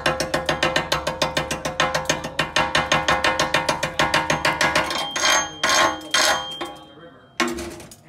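Chipping hammer tapping rapidly and evenly on an aluminium stick weld, knocking the flux slag off the bead, with the thin aluminium box ringing under the strikes. The tapping stops about five seconds in, followed by a few short, harsher noises.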